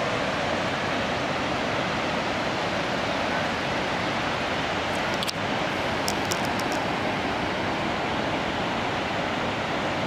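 Steady rushing of falling water from Fish Creek Falls and the rocky cascade below it, an even unbroken noise. A few faint high clicks a little past halfway.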